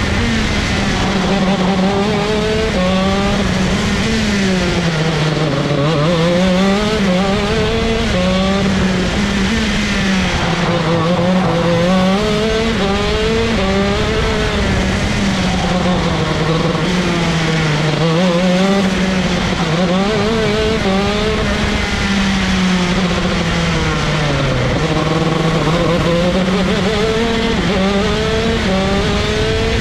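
Vortex ROK 125 cc two-stroke shifter kart engine running hard at high revs, its pitch climbing repeatedly as it accelerates through the gears and falling back several times, deepest about five, sixteen and twenty-four seconds in.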